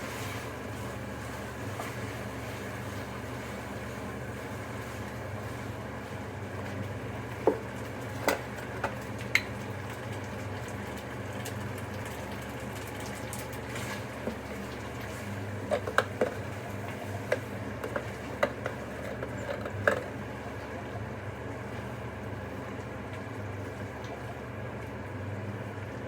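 Steady low hum, with a run of sharp clicks and knocks through the middle stretch.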